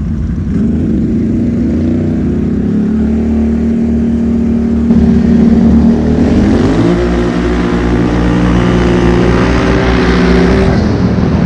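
Can-Am Renegade XMR 1000R ATV's V-twin engine running under throttle on the road, its revs climbing about six seconds in and holding higher.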